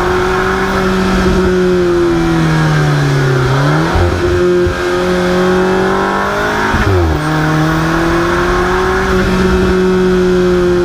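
Alfa Romeo 4C's turbocharged 1.75-litre four-cylinder engine running hard at high revs while driving. It holds a steady note, dips in pitch, and breaks or jumps in pitch twice, about 4 and 7 seconds in.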